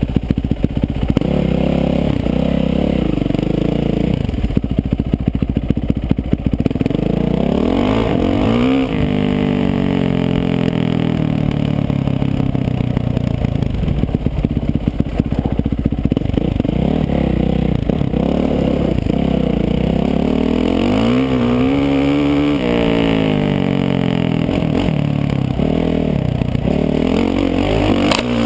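Yamaha YZ450F dirt bike's four-stroke single-cylinder engine running as the bike is ridden, heard from a helmet-mounted camera. The revs climb sharply about a third of the way in and again about three-quarters of the way through, then drop back.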